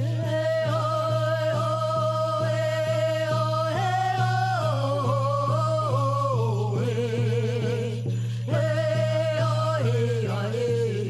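Music: a song with a voice holding long, wavering notes that step down in pitch, over a steady beat.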